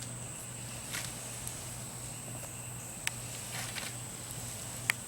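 Steady high-pitched insect trilling, with a few short sharp clicks and snaps, about one every two seconds.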